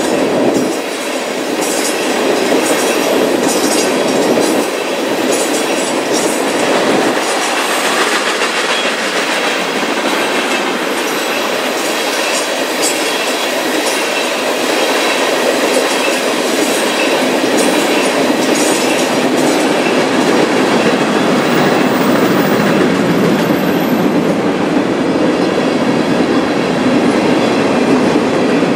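Freight train of tank cars rolling past: a steady, loud noise of steel wheels running on the rails, with repeated clicking as the wheels cross rail joints.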